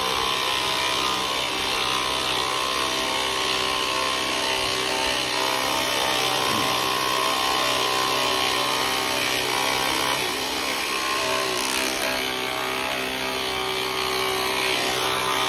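Handheld water-saving pressure-washer gun running steadily, its small motor-driven pump humming while the fine jet hisses onto the car's paint and rear glass.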